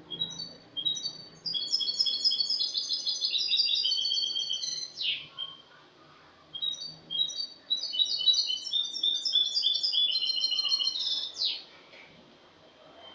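European goldfinch (Spanish jilguero) singing its clean song (cante limpio): two phrases of about five seconds each, rapid runs of short high twittering notes, each phrase ending in a quick downward sweep.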